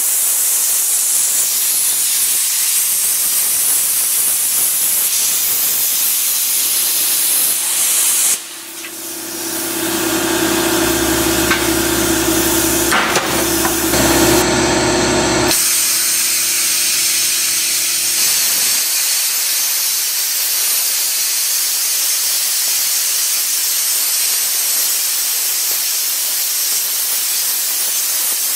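Hypertherm Powermax 45 plasma cutter's arc hissing steadily as the torch creeps through 1-inch steel plate. About eight seconds in the hiss stops and a steady low hum is heard for several seconds, then the cutting hiss starts again about sixteen seconds in.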